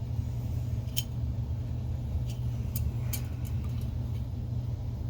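Steady low background hum with a few faint, light clicks of small parts being handled.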